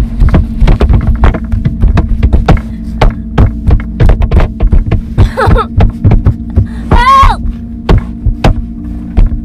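A steady low hum under rapid, irregular thuds and knocks, several a second. Two short wavering cries break in, about five and about seven seconds in.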